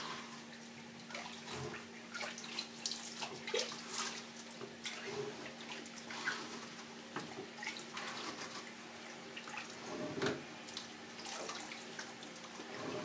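Water sloshing and splashing in a stainless steel sink as a plastic dish rack soaking in bleach water is scrubbed by hand, with small irregular knocks of the plastic rack; a somewhat louder knock and splash about ten seconds in. A faint steady hum runs underneath.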